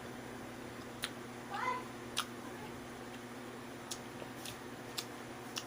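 A cat meows once, briefly, about a second and a half in. Faint sharp clicks come every second or so over a low steady hum.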